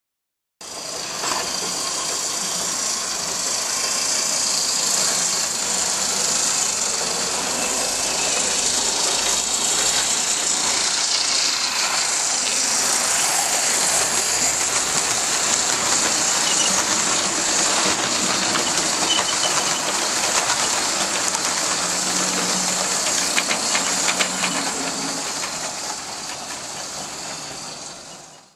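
OO gauge model Class 22 diesel-hydraulic locomotive and coaches running on the layout's track: a steady motor whir and the hiss of wheels rolling on rail. A few sharp clicks come near the end as the wheels cross rail joints or points. The sound starts and stops abruptly.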